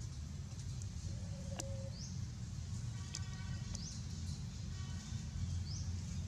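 Outdoor forest ambience: a steady low rumble under a bird repeating a short rising high chirp about every two seconds. A single click comes about a second and a half in, and brief pitched calls come around three and five seconds in.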